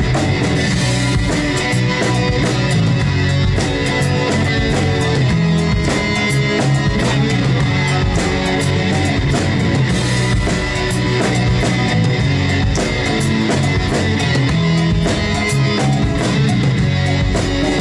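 Live rock band playing an instrumental break: electric guitars, bass and drum kit, with no vocals.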